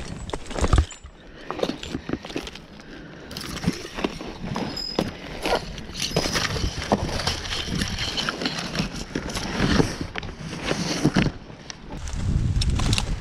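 Dry, fibrous palm fronds scraping and crackling against a climber's head-mounted camera, with irregular knocks as he works his way up the trunk. A low rumble comes in near the end.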